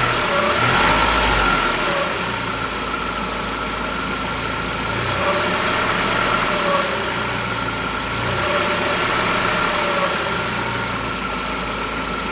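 Saab car engine running with a steady high-pitched whine from the alternator, which is starting to fail, not the turbo. The engine note lifts and settles gently a few times.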